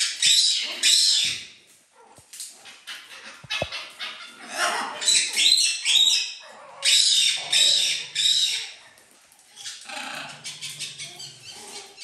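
Loud, high-pitched animal cries in three spells of quick repeated calls, with softer calls near the end.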